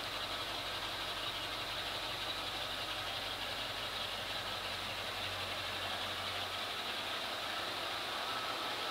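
A machine running steadily: a low hum under an even hiss, with the hum fading a little near the end.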